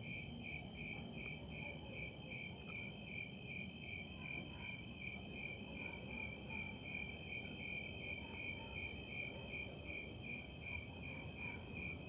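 Crickets chirping at night: a steady high trill alongside a high chirp that pulses about three times a second.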